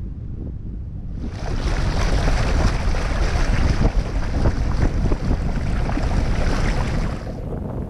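Water rushing and splashing along a Westerly Fulmar yacht's hull as its bow wave breaks under way, with wind buffeting the microphone. The rush swells about a second in and eases near the end.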